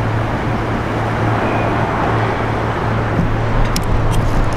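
Steady road traffic noise in a town street, with a constant low hum underneath.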